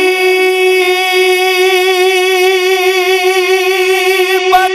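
A naat reciter's voice holding one long sung note, steady in pitch with a slight waver, moving to a new note near the end.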